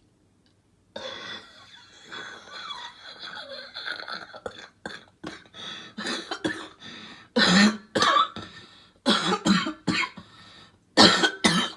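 Coughing fit: about a second in, rough, raspy coughing and hacking begins, building into three bouts of loud, harsh coughs in the second half.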